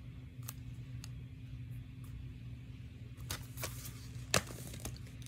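Plastic DVD case being handled, with a few light clicks and taps and one sharper snap about four seconds in as the case is opened. A steady low hum runs underneath.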